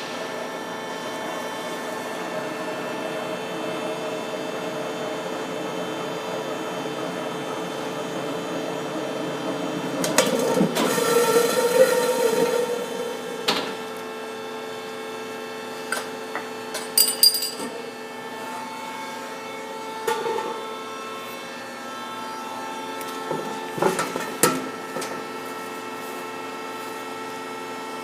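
Lathe running with a steady machine whine. Partway through comes a louder, rougher noise lasting about three seconds, then several separate sharp knocks and clatters.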